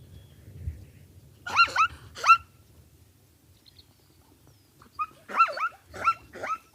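Zebra barking: short, high, yelping calls that rise in pitch. Two come about a second and a half in, then a quicker run of four or five near the end.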